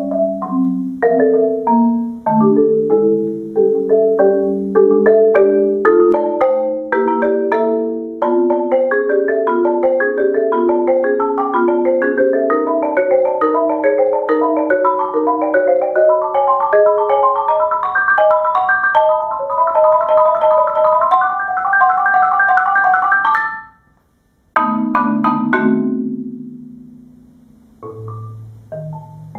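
Solo marimba played with mallets: fast running notes that climb steadily higher, breaking off suddenly late on, followed by a loud low chord left to ring and die away and a few low notes at the end.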